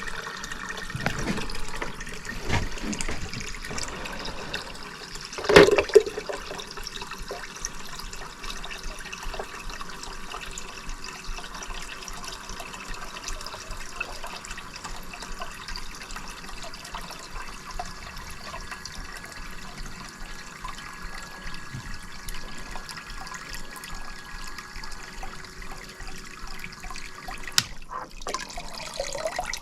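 Water running and trickling into a bucket as a clogged condensate drain pan is emptied, with a faint steady hum under it that stops near the end. A sharp knock about five seconds in.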